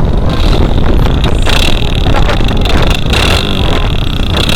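Motorcycle riding with a novelty aftermarket exhaust: a loud low engine-and-wind rumble with a high, steady whistling tone from the modified exhaust that swells several times.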